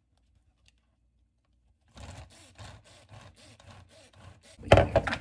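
About two seconds of near silence, then a run of quick scraping strokes in the kitchen, about four a second, from a utensil working food. It ends in a few loud knocks near the end.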